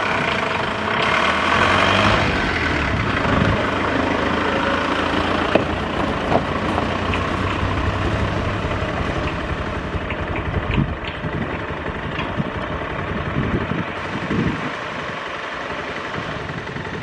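SUV engine running on a dirt road, steady at first and slowly fading near the end, with a few light knocks.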